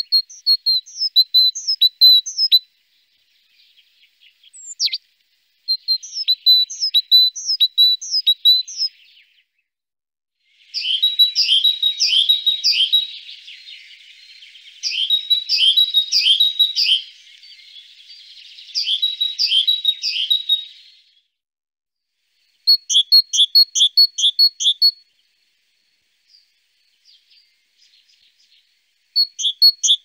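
Great tit singing its song of fast, repeated two-note phrases, high-pitched, in about six bursts of a few seconds each with short pauses between.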